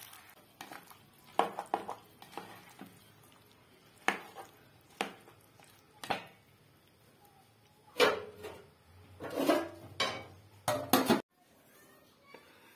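A cooking utensil knocking and scraping against a metal cooking pot while chopped okra is stirred, in a series of irregular clanks, the loudest bunched near the end before the sound stops abruptly.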